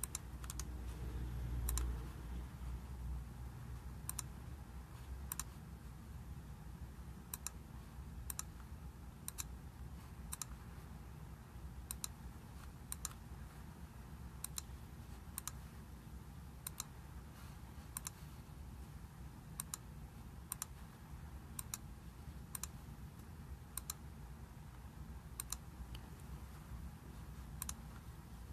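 Computer keyboard clicking slowly and unevenly, about one sharp click a second, over a low steady hum. A short low rumble comes about a second in.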